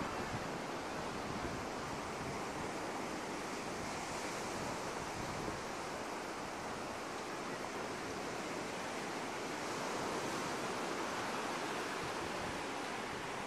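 Ocean surf: waves washing onto a beach in a steady rush, swelling a little about ten seconds in.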